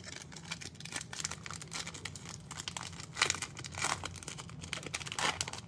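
Foil wrapper of a Donruss Optic trading-card pack being torn open and crinkled in the hands: a run of crackles, with a few louder rips about three, four and five seconds in.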